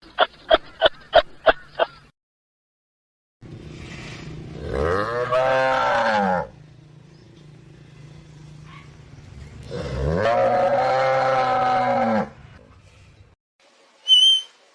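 Animal calls: a quick run of six short pitched calls, then two long, loud calls whose pitch rises and falls, in the manner of lowing cattle, and a brief high chirp near the end.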